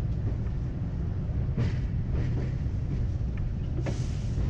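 R62A subway car running on the track, a steady low rumble of wheels and motors with several sharp clicks of the wheels over rail joints. A brief hiss comes in near the end.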